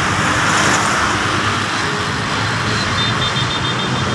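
Steady roadway traffic noise from vehicles on a busy road, with a quick run of about six short high beeps about three seconds in.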